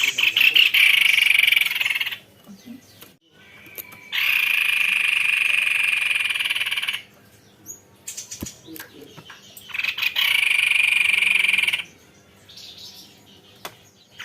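White-necked babbler singing three long, rapid rolling trills of about two to three seconds each, with short pauses between them.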